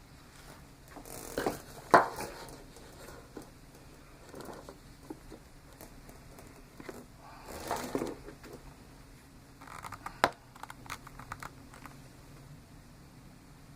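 Faint, steady running of a Philips DreamStation Go travel CPAP set to 10 cmH2O. Over it come intermittent rustling and scratching, with a sharp click about two seconds in and another about ten seconds in.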